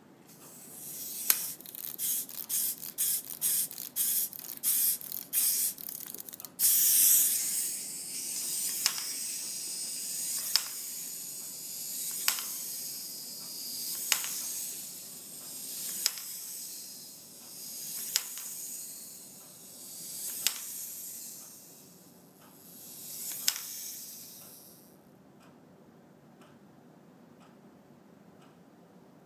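Clockwork motor of a wind-up toy dog. After a few seconds of short stop-start rasps it runs with a whirring hiss that swells and fades, with a sharp click about every two seconds. The clicks come further apart as the spring runs down, and it stops near the end.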